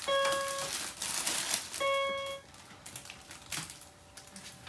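Toy electronic keyboard sounding the same steady note twice, each held about half a second, over the crinkling of a plastic mailer package being handled and opened.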